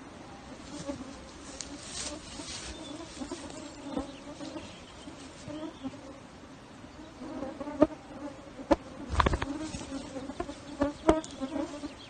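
Swarm of midges buzzing close around the microphone in a steady hum. A few sharp knocks break in during the second half.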